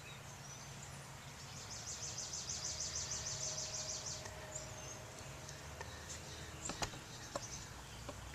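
A bird's rapid, high-pitched trill of about eight notes a second, lasting a couple of seconds, with a few faint chirps before and after; a couple of faint clicks near the end.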